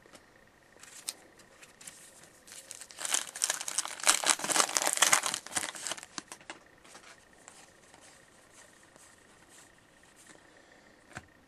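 A hockey card pack wrapper being torn open and crinkled in the hands, loudest in the middle, followed by fainter rustling and light ticks as the cards are handled.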